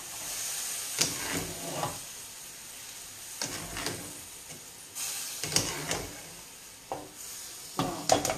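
Wet pasta scooped from boiling water with a metal spider strainer and dropped into a hot frying pan: a steady sizzle, broken by splashes and clinks of the strainer on the pot and pan about once a second, several in quick succession near the end.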